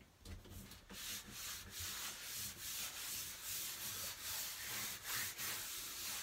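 A hand rubbing and smoothing a Sticky Dot paper poster flat against a painted wall, a papery rubbing in repeated strokes starting about a second in.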